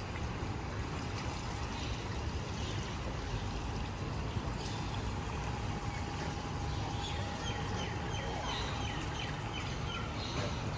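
Steady rush of water at a swimming pool, like water pouring or trickling into the pool.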